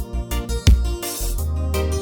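Background music with a steady beat: a kick drum, a deep bass line and keyboard or guitar notes.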